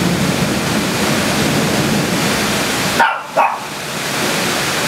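Heavy rain pouring down with a steady hiss. About three seconds in, a dog barks twice in quick succession.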